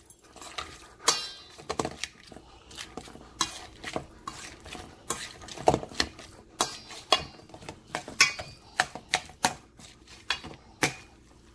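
Wire potato masher mashing baked sweet potatoes in a stainless steel mixing bowl: irregular metal clinks and knocks against the bowl, a few each second, with soft squishing between them.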